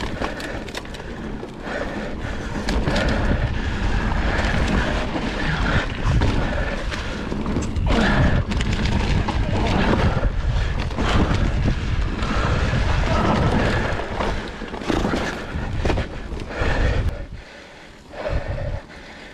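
Mountain bike riding a rough forest singletrack, heard from a handlebar-mounted camera. Wind and vibration rumble on the microphone, with frequent knocks and rattles from the bike going over bumps. The rumble eases near the end.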